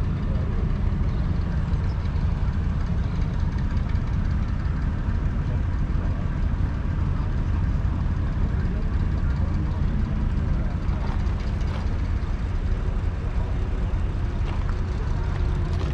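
1941 Ford Ferguson 9N's 2.0-litre four-cylinder flathead petrol engine running steadily.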